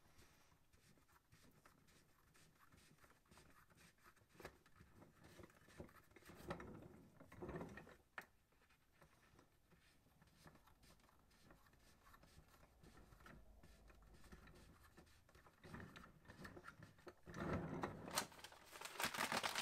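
Faint handling of a plastic bucket dolly on a wooden workbench: soft scrapes and knocks as it is turned, a sharp click about eight seconds in, and louder handling noise near the end.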